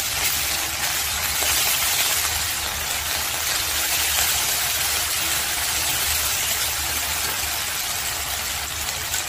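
Ginger and cumin paste frying in hot oil in a kadai, a steady loud sizzle as it is stirred with a flat steel spatula.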